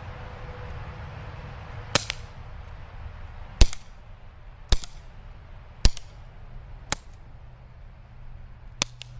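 EliteForce CQB gas airsoft revolver firing six shots, sharp pops about a second apart; two of them are followed closely by a second, fainter click.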